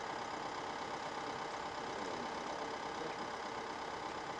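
A heavy machine's engine idling steadily: the crane holding a suspended concrete wall element in place.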